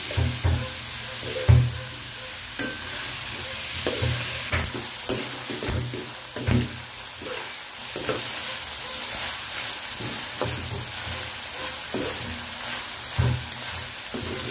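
Chopped duck meat and garlic sizzling as they are sautéed in a pan, with a spatula knocking and scraping against the pan at irregular intervals as the meat is stirred.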